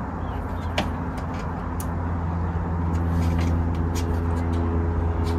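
A vehicle engine running with a steady low drone that grows a little louder from about halfway, under scattered light clicks of plastic wiring connectors being handled on a car bumper.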